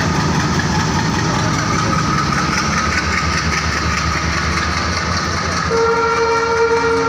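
Diesel locomotive and its passenger coaches rolling past close by: the locomotive's engine rumble gives way to the steady rattle of coach wheels on the rails. Near the end a train horn sounds one steady note for about two seconds.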